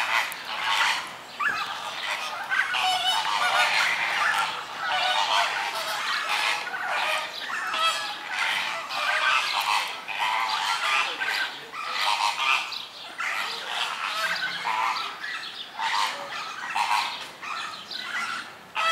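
A flock of flamingos calling continuously, a dense chorus of overlapping goose-like honks.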